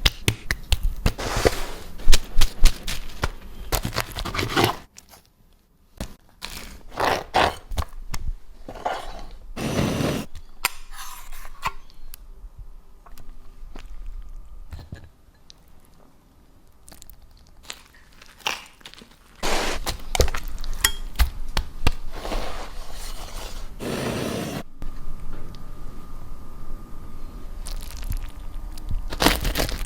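Crusty sandwiches being handled, cut and bitten: repeated crunching and crackling in several separate bursts, with brief pauses between them.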